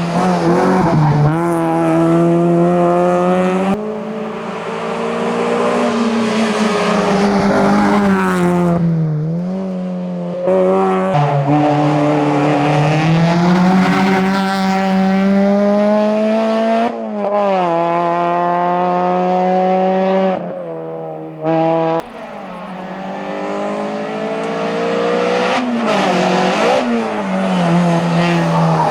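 Hillclimb racing car's engine run hard up the course at full throttle, its note rising through each gear and dropping at the shifts, with brief lifts off the throttle around the bends. The sound jumps abruptly in level and pitch several times.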